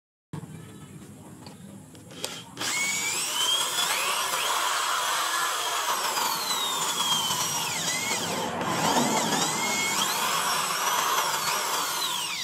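Electric hand drill boring pin holes through a hardwood knife-handle scale, guided by the holes in the steel blade. The motor starts loud about two and a half seconds in, its whine sliding up and down in pitch as the bit bites into the wood.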